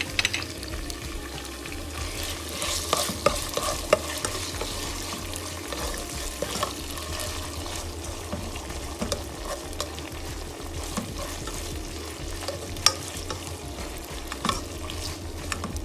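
Tuna sizzling in oil in a non-stick frying pan while a plastic slotted spatula stirs it, scraping and tapping the pan with scattered clicks and a few louder knocks.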